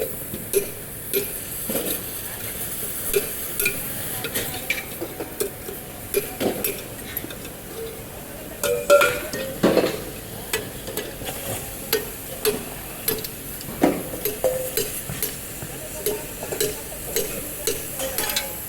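Irregular metal clinks and knocks, a few every second and louder about halfway through, over a steady hiss: metal parts being handled and struck by hand.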